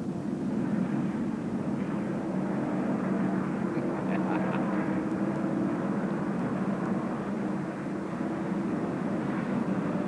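Field of NASCAR Winston Cup stock cars' V8 engines running at speed on the track, a steady blended engine drone.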